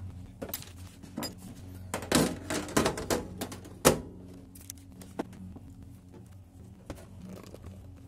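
Metal side panel of a Zoostorm PC tower case being handled against the case: a run of clatters and knocks, loudest a single sharp knock about four seconds in, then a few fainter clicks over a steady low hum.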